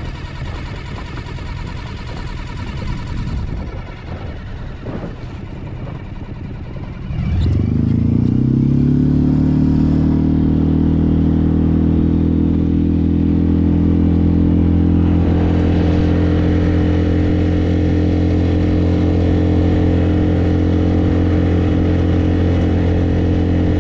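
Small boat outboard motor catching about seven seconds in. Its pitch rises quickly and settles into a steady run, turning a little brighter about halfway through. Before it starts there is only a rough, even rushing noise.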